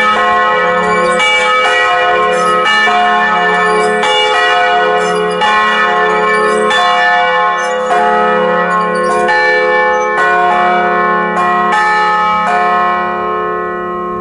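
Two swinging church bells in an open wooden bell tower, tuned to F-sharp and A, ringing together with their strokes falling in an uneven, interleaved pattern. Near the end the strokes stop and the ringing dies away.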